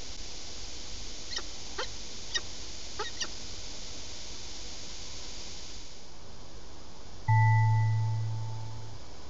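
Peregrine falcons at the nest give five short, high calls in quick succession over a steady hiss. About seven seconds in, a single loud chime-like tone starts suddenly and fades out.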